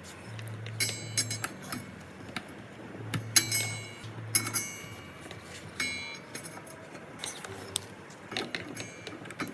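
Light metallic clicks and clinks of a T25 Torx driver and screws being worked on a miter saw's stock dust chute, with a few short low hums in between.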